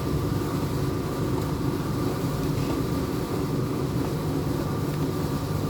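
Steady low mechanical hum, like a motor or engine running, with no change in level.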